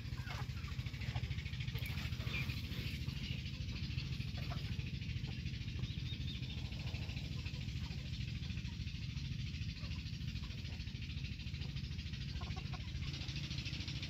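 A flock of chickens, hens and roosters, clucking now and then over a steady low hum.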